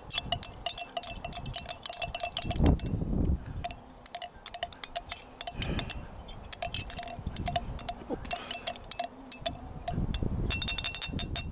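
Thin metal spoon tapping and scraping against the inside of a small glass jar in quick, irregular clinks while stirring powder into liquid, the glass ringing after the taps. A few low rumbles come and go.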